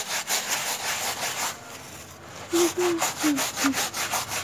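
A stiff plastic scrub brush scrubbing a wet, soapy woven doormat on concrete by hand: quick back-and-forth rasping strokes, about five a second, easing off briefly near the middle before picking up again.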